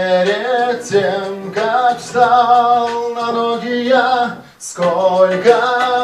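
A man singing a song in Russian into a microphone over a karaoke backing track, with a brief break in the singing about four and a half seconds in.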